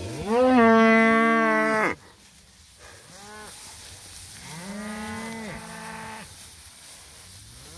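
Beef cows in a crowded mob mooing: one loud, long call at the start, then a short call and a quieter, longer one midway. The cattle are bawling in protest at being packed into a small paddock.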